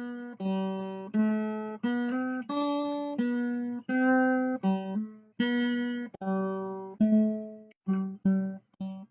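Acoustic guitar playing a slow melody of single plucked notes, about a dozen, each ringing out and fading before the next.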